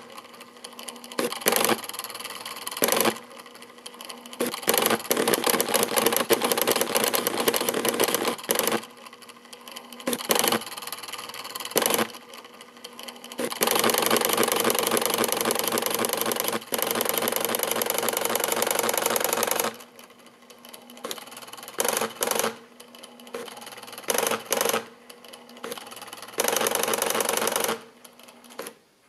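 Commodore VC-1520 four-colour ballpoint pen plotter drawing: its stepper motors buzz in many short bursts as the pen carriage and paper roll move. There is one long unbroken run of about six seconds midway, and the plotting stops shortly before the end.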